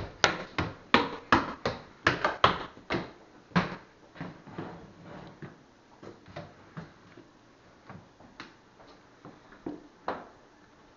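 Quick footsteps, about two to three a second, loud at first and fading over the next few seconds into softer, scattered steps and knocks.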